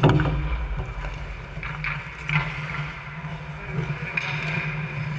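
Ice hockey play on a rink: a sharp knock right at the start, then skate blades scraping on the ice and stick clatter, over a steady low hum.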